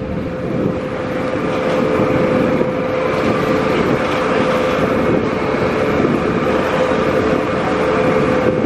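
Vaporetto water bus under way, its engine running with a steady hum over a constant rushing noise.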